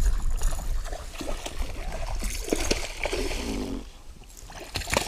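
Water splashing irregularly as a hooked smallmouth bass thrashes in the weeds beside the boat, with a few sharper splashes midway and near the end.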